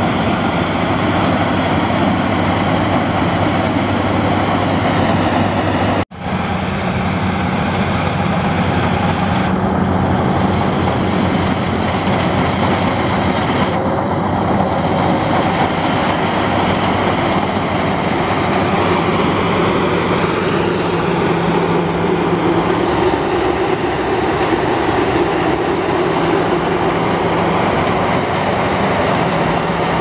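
Crown Sumo rice combine harvester running steadily while harvesting paddy: a continuous engine drone mixed with the noise of its cutting and threshing machinery. The sound drops out for an instant about six seconds in.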